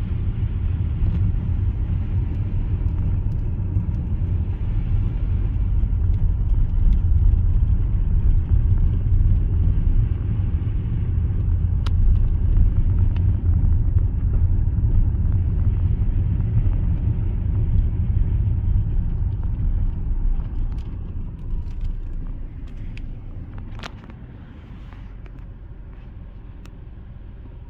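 Car driving on snowy roads: a steady low rumble of road and engine noise that dies down about twenty seconds in, with a few faint clicks.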